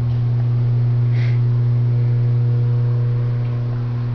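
A steady low electrical hum that holds unchanged, with a faint short rustle about a second in.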